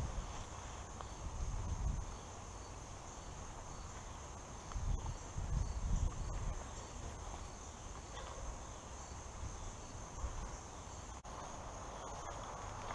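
Steady high-pitched insect chorus, with soft low thuds of footsteps on grass around a second in and again about five seconds in.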